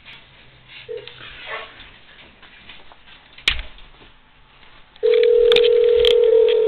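Telephone ringback tone: one steady ring tone starting about five seconds in and lasting about two seconds, the line ringing at the called store. A single sharp click comes about three and a half seconds in.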